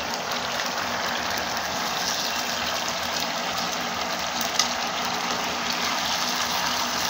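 Tomato and mushroom sauce sizzling and bubbling steadily in a frying pan, with one short clink about four and a half seconds in.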